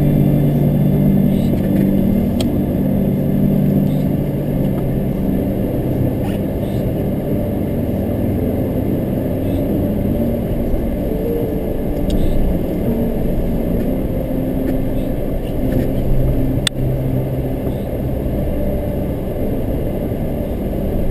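A motor vehicle running with a steady low rumble, with a single sharp click near the end.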